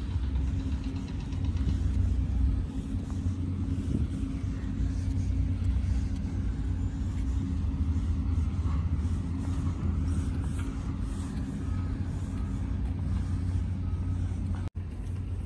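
Steady low rumble of running vehicle engines with a constant hum over it, cutting out for an instant near the end.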